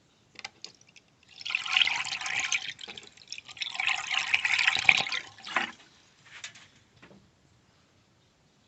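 Antifreeze poured from a canister into a car's cooling system, in two pours of about two seconds each with a short break between.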